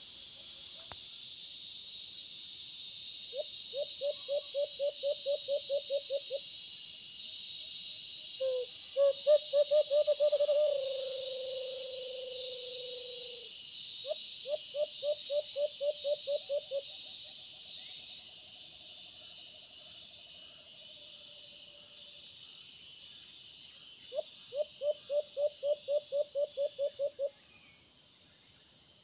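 Caged decoy dove (alimukon) cooing in four bouts of quick low pulsed notes, about five a second, each bout lasting about three seconds. The second bout, around nine seconds in, is the loudest and trails off into a drawn-out falling note. A steady high insect buzz runs underneath.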